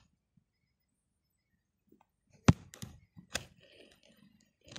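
A few sharp knocks and taps of something being handled, the loudest about halfway in and a smaller one about a second later.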